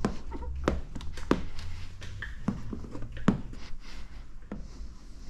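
Handling noise: light, irregular taps and knocks, about ten in five seconds, with a low hum that stops under a second in.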